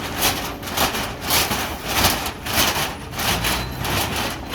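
Rhythmic gritty scraping strokes, about two a second, over a low engine rumble.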